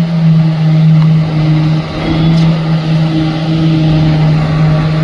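Concreting machinery running with a steady, loud engine hum. Its pitch drops slightly right at the start as it takes up load, then holds even.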